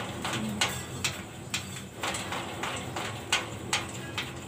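Light metallic clicks and knocks, about two a second and a little uneven, from a rice thresher's shaking sieve linkage worked by hand, over a low steady hum.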